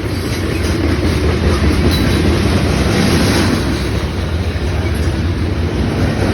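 Manifest freight train rolling past, with a steady, loud rumble and clatter of steel wheels on the rails.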